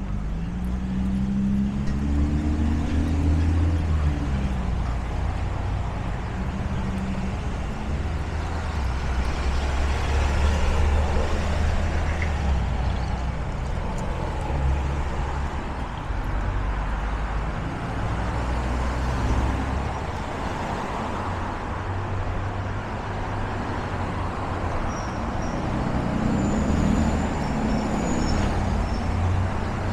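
Steady city street traffic, with cars and other motor vehicles passing close by and a continuous low engine and tyre rumble. Over the first few seconds one engine climbs in pitch as a vehicle accelerates. Near the end there is a brief high, thin squeal.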